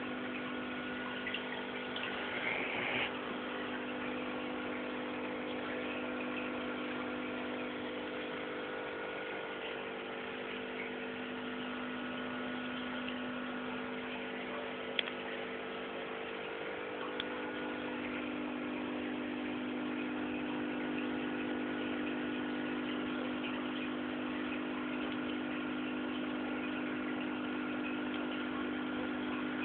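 Aquarium pump running: a steady hum of several tones over a hiss, with a couple of faint clicks about halfway through.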